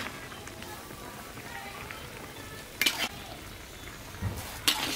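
Metal spatula scraping against a steel wok twice, about three seconds in and near the end, over a soft steady sizzle of stir-fried pork, baby corn and carrot in their sauce.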